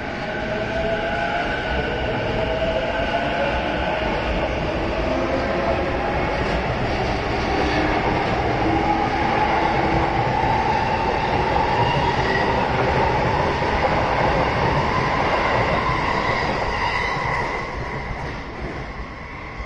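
JR East E233 series electric commuter train pulling away from the platform and accelerating past, its traction motors whining upward in pitch over the rolling rumble of the wheels. The sound drops off near the end as the last car goes by.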